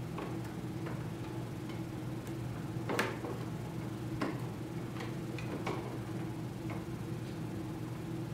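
Stiff tulle rustling and crackling in scattered small clicks as it is pulled and hand-stitched with a needle and thread, the sharpest about three seconds in. Under it runs a steady low hum.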